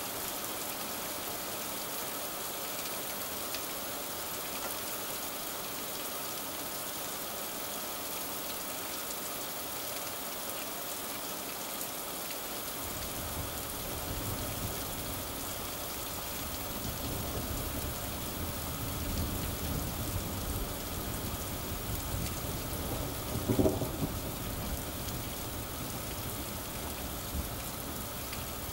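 Steady rain hissing throughout. About thirteen seconds in, a low rumble of thunder builds and rolls on, peaking in a brief loud burst about five seconds before the end, then easing off.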